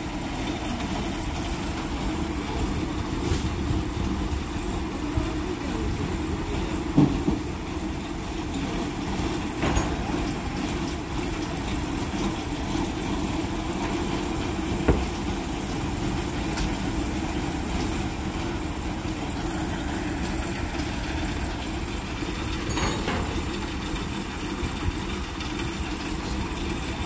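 Truck engines idling steadily, with a few short knocks in the middle.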